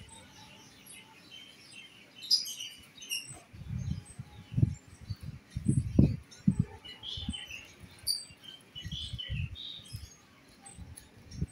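Small birds chirping on and off in short high notes, over irregular low gusts of wind buffeting the microphone; the gusts are loudest about four and a half and six seconds in.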